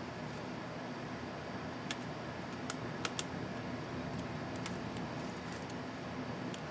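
Steady background hiss with a low hum, and a few faint, sharp little clicks: one about two seconds in and a quick cluster around three seconds. The clicks fit a laptop keycap and its small plastic retainer clips being handled.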